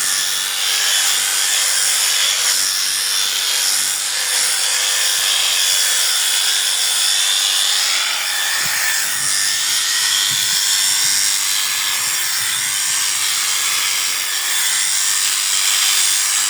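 Electric sheep shears running steadily with a constant high whine, the blades cutting through the fleece.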